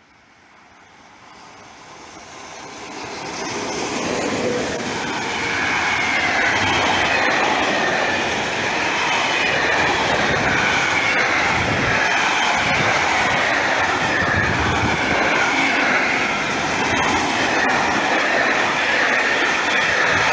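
Intermodal container freight train approaching and passing at speed. The sound builds over the first four seconds as the train nears, then holds as a steady, loud rush of steel wheels on rail from the container wagons. A high ringing from the wheels runs over it, and there is a rhythmic clatter over the rail joints.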